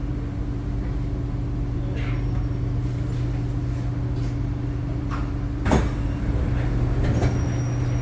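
Inside a C751B metro train carriage: a steady electrical hum and low rumble from the train, with scattered clicks and one sharp knock about six seconds in.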